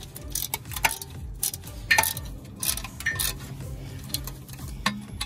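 Hand ratchet wrench clicking and clinking on a bracket bolt as it is worked loose. The sharp metallic clicks come at uneven intervals, and the loudest is about two seconds in.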